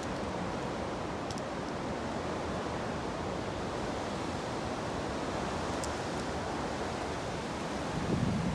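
Steady outdoor wind hiss through the trees. Near the end a gust hits the microphone with a low rumble.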